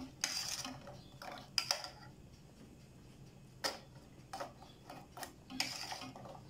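Metal spoon tapping and scraping against a stainless steel pot as cookies are turned in warm jam syrup: a scatter of light, irregular clicks, with a couple of short scrapes.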